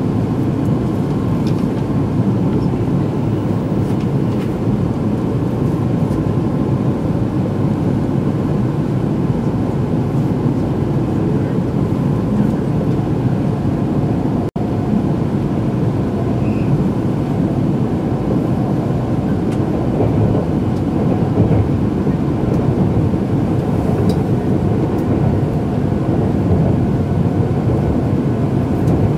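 Steady running noise of an E2-series Shinkansen train, heard inside the passenger cabin: a low rumble of wheels and running gear. It drops out for an instant about halfway through.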